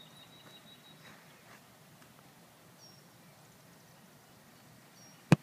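Quiet open-air background with a few faint bird chirps, then near the end one sharp, loud thump: a boot kicking a football off a tee.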